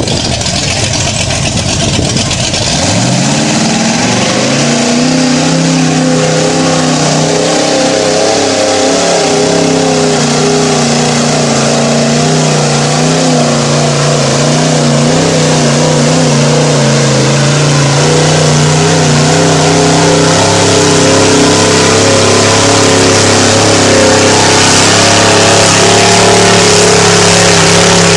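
Mud-bogging 4x4 truck's engine revved hard as it plows through a mud pit. Its pitch climbs about three seconds in, then stays at high revs and grows louder over a steady rush of noise.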